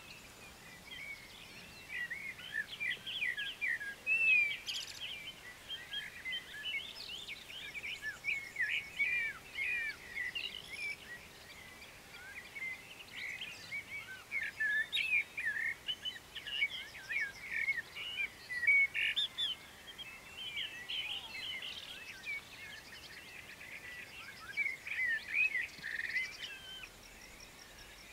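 Songbirds singing in a dense run of quick chirps and warbles, with brief gaps between phrases.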